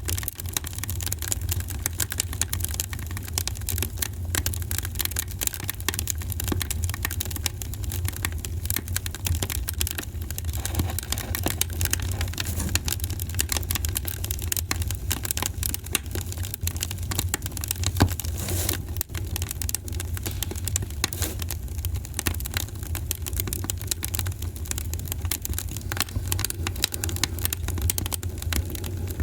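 Wood fire in a fireplace crackling: dense, irregular snaps and ticks over a steady low rumble, with one louder pop about eighteen seconds in.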